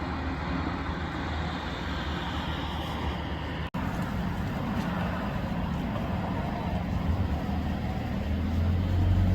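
Road traffic: motor vehicles passing on the road, a steady tyre-and-engine noise, with a low engine hum growing louder near the end. The sound drops out for a moment a little under four seconds in.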